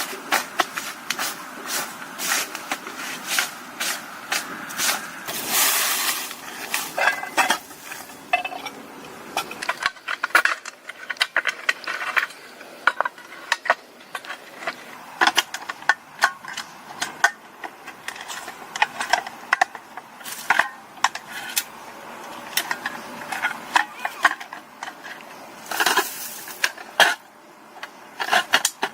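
Many short knocks, clicks and clinks of hard objects being handled, over rustling, with louder rustling stretches about six seconds in and near the end.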